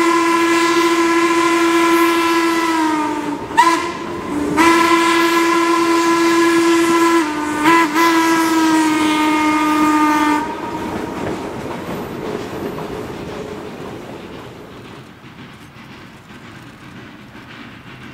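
Steam locomotive whistle heard from a car behind the engine, blowing a long blast, another long, a short and a final long, the grade-crossing signal, each blast sagging in pitch as it ends. After the last blast the train runs on with wheels clicking over the rail joints, fading away.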